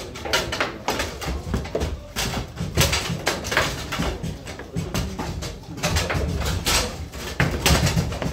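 Table football (baby-foot) game in play: the ball striking the players and walls and the rods clacking in quick, irregular knocks, over a low background rumble of the hall.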